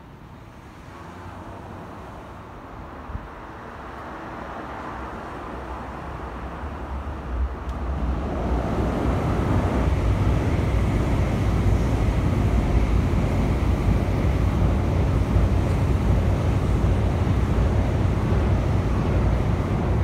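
An electric train, a JR West 227 series, approaching along the track: its running noise rises gradually, then from about eight seconds in becomes a loud, steady rumble with a rushing, wind-like sound.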